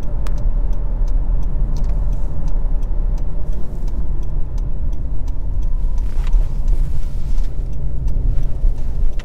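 Inside the cabin of a 2023 Honda CR-V driving at town speed: a steady low rumble of road and engine noise from its 1.5-litre turbocharged four-cylinder and CVT. A light, regular ticking comes about twice a second.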